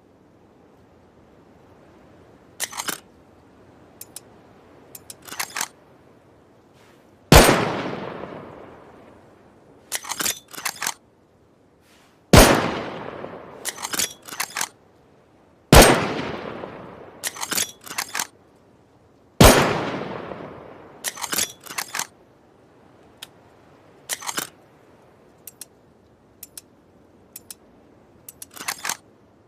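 Makeshift bolt-action rifle sound effect: four loud shots, each with a long echoing decay, and between and after them short clusters of sharp metallic clicks as the bolt is worked.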